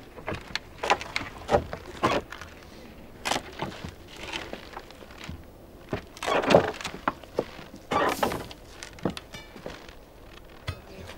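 Wooden planks and beams being pried loose and knocked with iron crowbars: irregular knocks, thuds and cracking of wood, the loudest a little past halfway, with a short rattle near the end.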